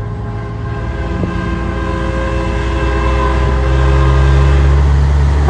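Semi-truck air horn blowing one long, steady blast of several pitches at once, getting louder as the truck approaches. The deep rumble of the truck's diesel engine swells beneath it toward the end.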